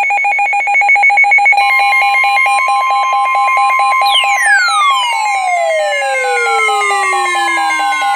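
Emergency alert attention tones, several layered together. A fast pulsing two-tone beep is joined about one and a half seconds in by a steady high tone. About four seconds in, a long siren-like sweep falls in pitch.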